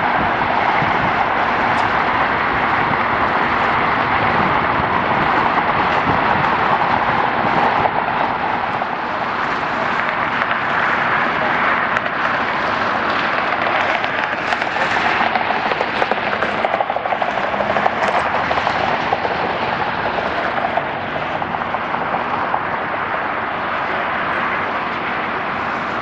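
Jet airliner's turbofan engines at takeoff power, a loud steady roar as the aircraft climbs out, easing off slightly after about eight seconds.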